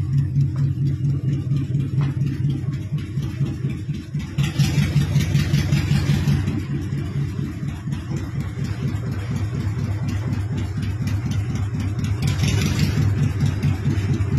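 Big multi-cylinder engine of a custom chopper motorcycle running at low speed with a deep, steady pulsing rumble, picking up about four seconds in.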